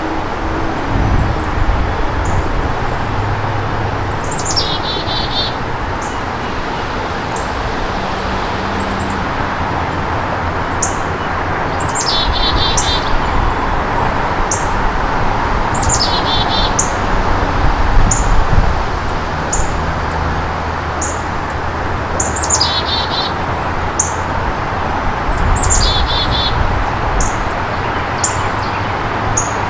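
Chickadee calling about six times at intervals of a few seconds: each call is a quick falling note followed by a short run of rapid notes. A steady low rumble runs underneath.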